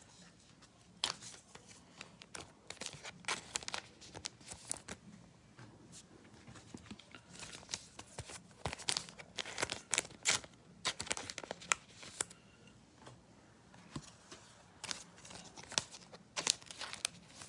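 Card and box packaging being torn and crinkled by hand in irregular bursts of rustling and ripping.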